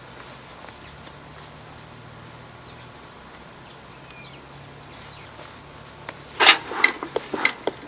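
Faint low steady hum, then from about six seconds in a run of loud, irregular rustling and handling clicks.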